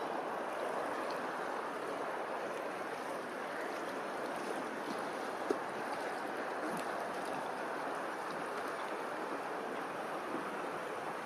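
Steady rushing noise of running water, with a single faint click about halfway through.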